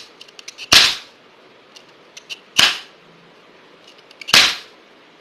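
Toy cap gun firing ring caps: three sharp bangs about two seconds apart, each preceded by light clicking of the trigger and hammer.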